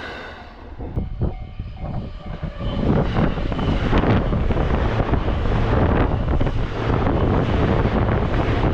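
A train passing at close range: a loud, steady rush of running noise builds up about three seconds in, with scattered knocks from the wheels and running gear.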